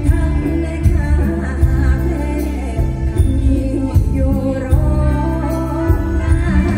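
A female singer performing a Thai luk thung song live with a full band, amplified through a stage PA. A wavering vocal melody rides over heavy bass and a steady drum beat.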